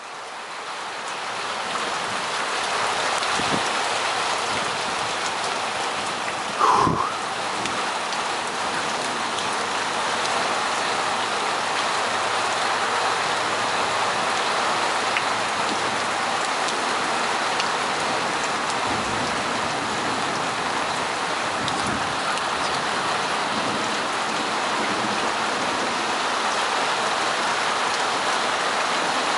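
Heavy rain falling steadily in a thunderstorm, fading in over the first couple of seconds. A short, sharp sound cuts through about seven seconds in.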